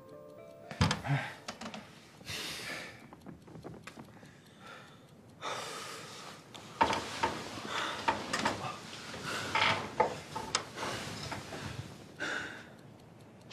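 Two men breathing heavily and gasping during sex, with scattered soft knocks and clicks, most of them in the middle of the stretch.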